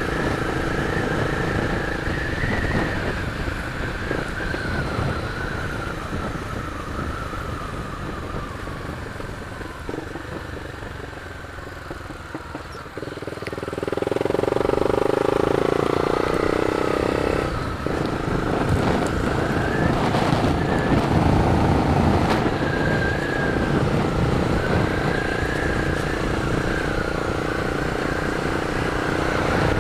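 Honda CB 300 motorcycle engine running on the move. Its note falls and grows quieter over the first dozen seconds, then jumps louder about thirteen seconds in and stays up.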